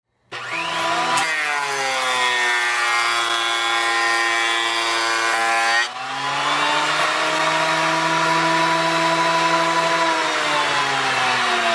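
Power tool cutting wood: a loud whine of several tones that slowly bend in pitch over a hiss of cutting, breaking off abruptly about six seconds in and starting again at a lower pitch.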